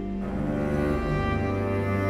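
Background instrumental music led by low bowed strings, with a new chord coming in just after the start.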